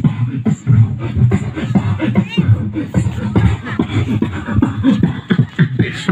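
A man beatboxing into a handheld microphone, amplified through a sound system: a fast, continuous string of deep kick-like thumps and sharp snare and hi-hat sounds made with the mouth.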